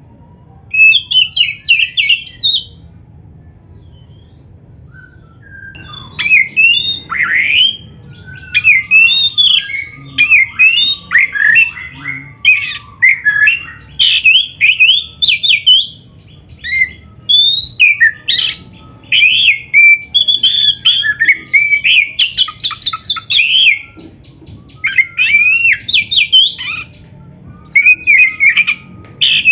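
Oriental magpie-robin singing loudly: a short phrase about a second in, then after a pause a long, nearly unbroken run of rapid, varied high notes with only brief breaks.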